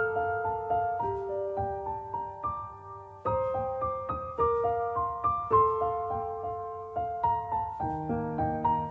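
Background piano music: a soft, slow melody of single notes over a low accompaniment, fading briefly about three seconds in before a new phrase starts.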